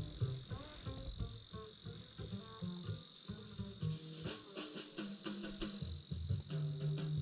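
Steady high-pitched insect chorus of crickets, with soft background music playing underneath.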